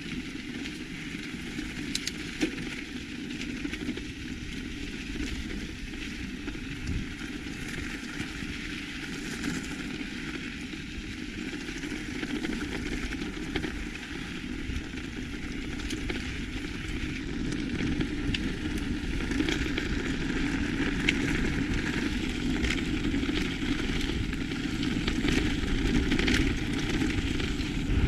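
Electric mountain bike riding a gravel track: tyres crunching over loose stones with small clicks and rattles from the bike, under a steady rush of riding noise that grows louder toward the end.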